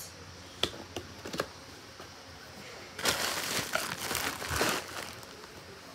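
Toy figure packaging being handled: a few light clicks, then about two seconds of crinkling and rustling past the middle.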